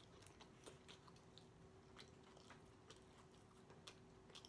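Faint close-up chewing of a mouthful of taco: soft, scattered wet clicks and smacks of the mouth.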